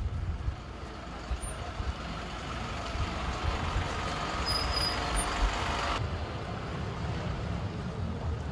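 School bus engine running as the bus drives slowly past close by, getting louder as it nears.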